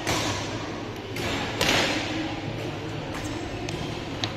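Badminton rackets striking a shuttlecock and thuds of play in a sports hall: a knock at the start, two hard hits in quick succession about a second and a half in, then a few lighter clicks.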